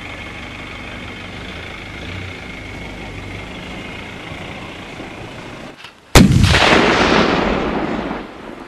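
A single loud explosion about six seconds in, an artillery-type blast that sets off suddenly and rumbles away over about two seconds. Before it there is a steady outdoor hiss with a faint high whine.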